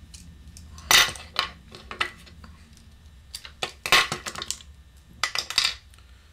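Scattered small metallic clicks and clinks of oboe keys and their pivot rod being handled as the right knuckle keys are taken off the top joint. The sharpest clinks come about a second in and again near four seconds.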